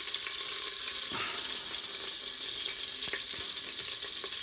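Hot oil and pork drippings sizzling steadily in the Instant Pot's stainless inner pot on the sauté setting, with a few faint clicks.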